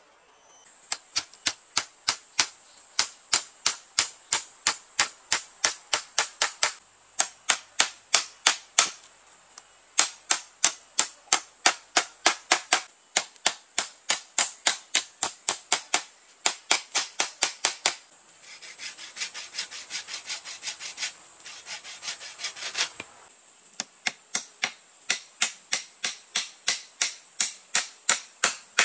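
Hammer driving nails through a bamboo cross-piece into split-bamboo slats, struck in runs of about three sharp blows a second with short pauses between. Partway through comes a stretch of quicker, lighter taps.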